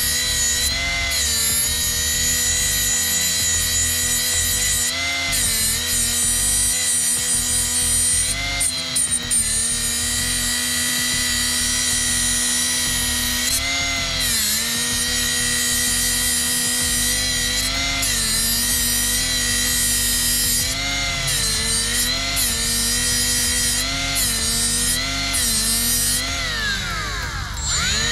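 Electric drill running steadily while drilling a hole in metal, its whine dipping in pitch every few seconds as the bit bites. Near the end it winds down and spins back up.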